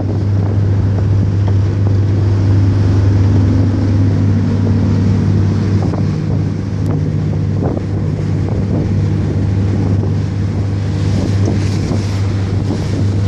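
Motorboat engine running steadily under way, a constant low hum, with wind buffeting the microphone and the wake rushing along the hull.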